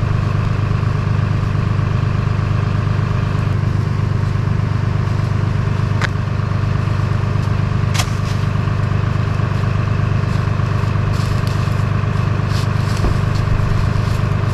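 Tow truck's engine running steadily, a constant low drone during a winch pull, with two sharp clicks about six and eight seconds in.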